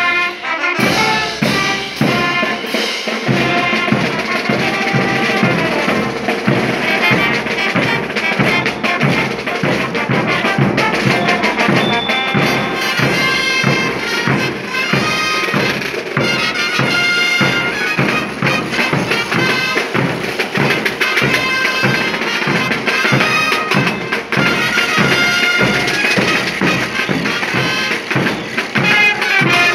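Brass band playing a morenada, a brass melody over a steady drum beat.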